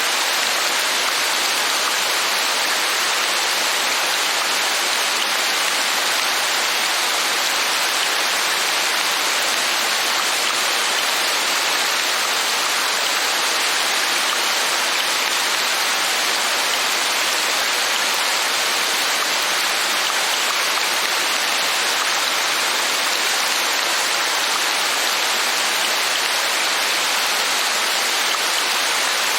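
Steady, even rain falling, a dense hiss with no separate drops standing out and no change in strength.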